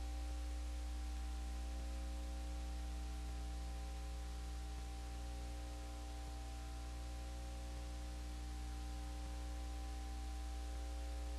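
Steady electrical mains hum over an even hiss, unchanging throughout, with no other sounds standing out.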